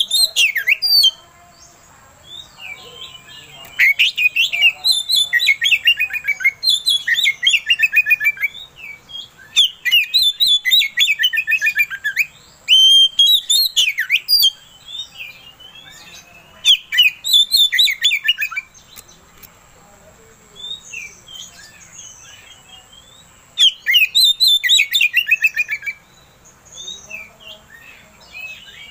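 Oriental magpie-robin (kacer) singing loudly in bursts of fast, chattering, up-and-down notes a few seconds long, with short pauses between and a longer pause about two-thirds of the way through.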